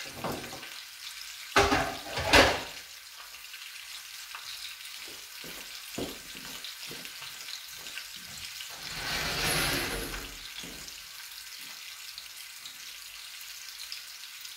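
Turkey roulades frying in oil in a pan: a steady sizzle with small crackles. Two loud, short noises come about two seconds in, and a louder hissing swell lasts about a second around the middle.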